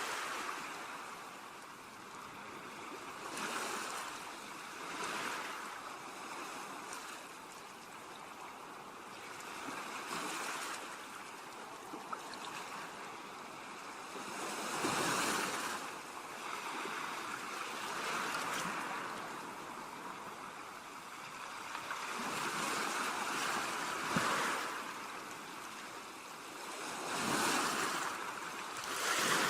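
Ocean waves breaking and washing on a beach, swelling and fading every few seconds in an uneven rhythm.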